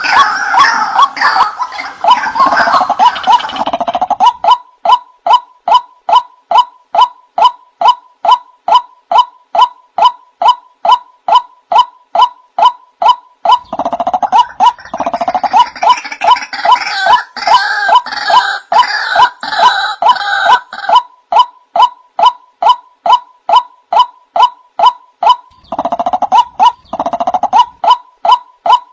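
Male white-breasted waterhen calling: a loud note repeated steadily about twice a second. Bursts of harsher, overlapping calling come in at the start, around the middle and near the end.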